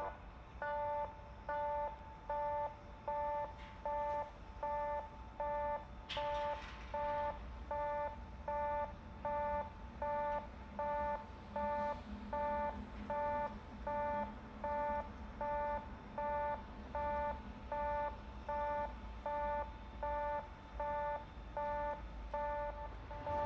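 Japanese railway level-crossing alarm ringing, an electronic two-tone ding repeating steadily a little more often than once a second, the warning for an approaching train. A brief hiss cuts in about six seconds in.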